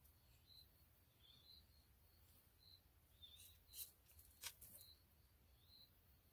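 Near silence with a faint low hum, broken by short high chirps from a small animal, repeating every half second to a second. Two soft clicks come about four seconds in.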